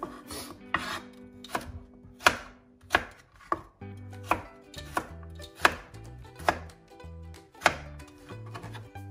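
Chef's knife dicing carrot on a plastic cutting board: a dozen sharp knocks of the blade hitting the board, a little over one a second and unevenly spaced.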